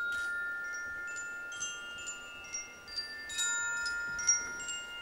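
Orchestral chimes played as the quiet opening of the piece. Bright, high metal notes are struck one at a time at an uneven pace, and each rings on under the next.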